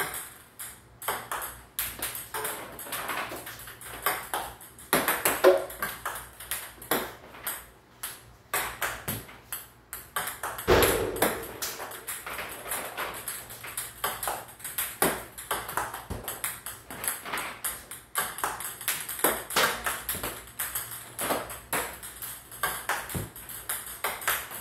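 Celluloid-style table tennis balls clicking sharply off a wooden racket and bouncing on the table, over and over, as backhand topspin strokes are played one ball after another. A duller thump comes about eleven seconds in.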